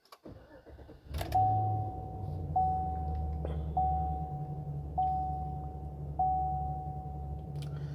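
A 2017 Chevrolet Silverado 3500's 6.0-litre gasoline V8 starts about a second in, catching at once, and settles to a steady idle. Over it, a dashboard warning chime sounds five times at even intervals of a little over a second.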